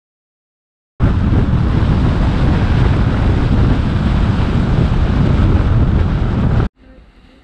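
Loud wind rumble on the microphone of a camera travelling on a moving vehicle along a road, starting suddenly about a second in and cutting off abruptly near the end, followed by faint outdoor ambience.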